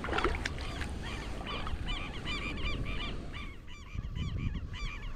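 A flock of birds calling: many short rising-and-falling calls, about three or four a second, from several birds at once, with a low wind rumble on the microphone underneath.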